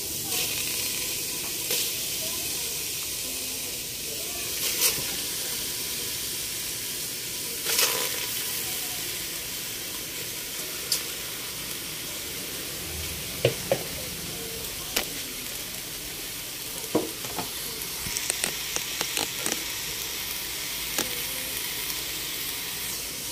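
Steady hiss of a stainless steel pot heating on the stove, with scattered light clicks and knocks as whole round scad are laid by hand into the pot over raw vegetables.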